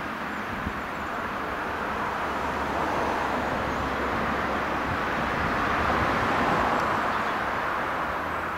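River water rushing over shallow rapids, a steady hiss that swells a little about six seconds in.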